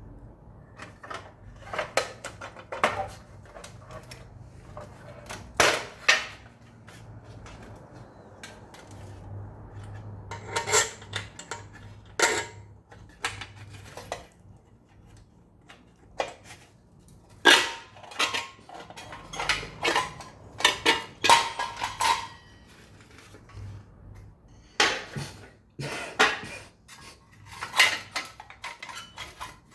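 Irregular metallic clanks, knocks and rattles from handling the sheet-metal body of a small electric oven and the tools used to open it, with busier stretches in the middle and near the end and a brief ringing clang.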